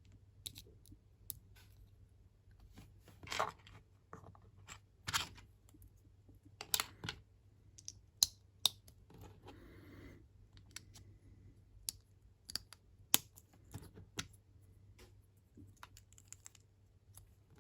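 LEGO minifigure parts and small plastic pieces being clicked together and handled on a table: sharp, irregular clicks and taps, with a short rustle about nine seconds in.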